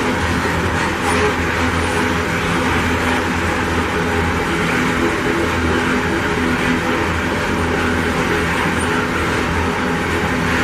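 Loaded iron-ore hopper wagons rolling past, a steady rumble and rush of steel wheels on the rails.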